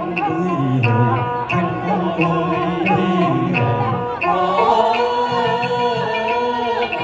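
Vietnamese folk-song medley performed live: singing over instrumental accompaniment with a steady beat of about two strokes a second, heard through stage speakers. About four seconds in the music grows fuller.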